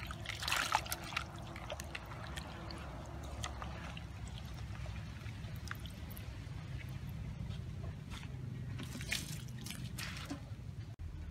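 A hand swishing green leaves around in a plastic bucket of water, with splashes in the first second and again about nine seconds in, and softer sloshing between.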